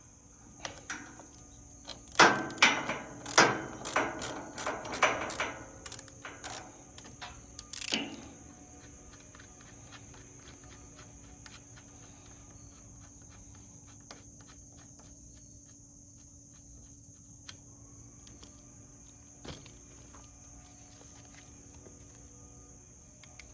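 A run of irregular knocks and clatter for about six seconds, then a steady high cricket chirr with a few faint isolated clicks.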